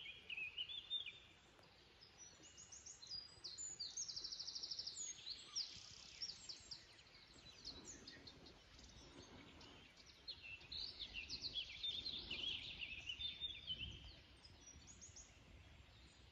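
Woodland songbirds singing, with overlapping high chirping phrases and a quick, evenly spaced trill about four seconds in.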